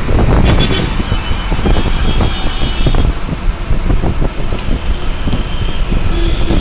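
Road traffic: vehicle engines and tyres running loudly and unevenly, with a brief sharp sound about half a second in.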